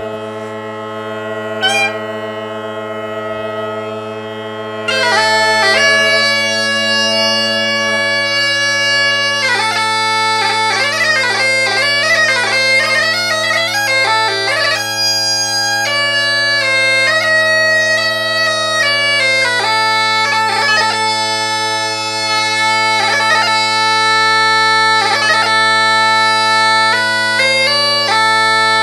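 Inexpensive Pakistani-made Great Highland bagpipes fitted with Ezeedrone synthetic drone reeds. The drones sound alone at first; about five seconds in the chanter comes in and plays a tune with quick grace notes over the steady drones. The player judges the drones relatively in tune with the chanter's low A.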